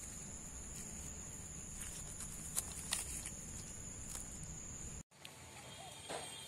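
Outdoor garden ambience with a steady high insect drone and a few sharp clicks. After a sudden cut near the end, a long-handled broom scrapes once across the earthen ground of a doorstep.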